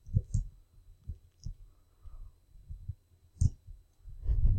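Soft, irregular low knocks and clicks from a computer mouse and desk as the 3D view is orbited, with one sharper click about three and a half seconds in.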